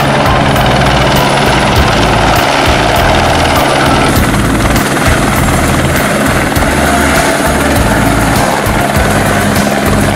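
Eurocopter AS350 Écureuil single-engine helicopter hovering and flying low: a steady rapid beat of the rotor blades over the turbine's running noise. The sound changes about four seconds in as a second helicopter of the same type takes over.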